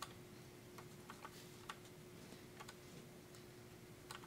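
Near silence with faint, irregular light clicks of fingers handling a plastic model car, over a faint steady hum.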